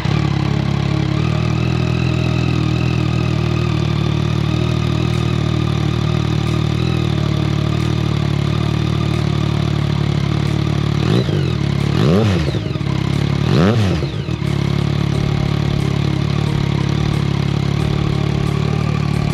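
Yamaha MT-09 SP's three-cylinder engine idling through an Akrapovic exhaust with its db-killer baffle removed. The throttle is blipped twice, about twelve seconds in and again a second and a half later, each rev rising and falling back to idle.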